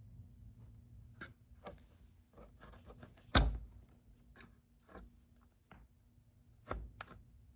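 A scattered series of light knocks and clicks from hard objects being handled, with one loud thump about three seconds in and another near the end.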